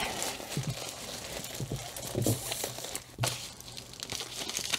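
Faint rustling and crinkling of the plastic packaging of a diamond painting kit being handled, with a few light knocks about two and three seconds in.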